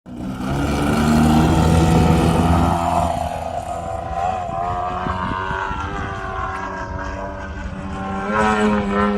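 DLE-130 twin-cylinder two-stroke petrol engine of a 35% scale Extra 330SC model plane, fitted with JMB silencers and swinging a 28x10 propeller, running in flight. It is loudest in the first three seconds, then its note drops a little and wavers up and down in pitch.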